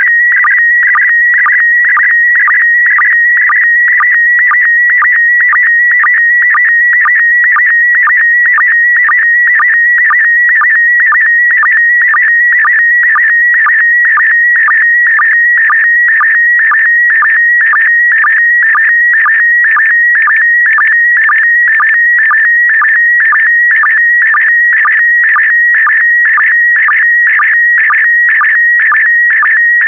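Slow-scan TV image transmission in PD120 mode: a continuous warbling tone near 2 kHz, broken about twice a second by a short lower sync blip as each scan line begins.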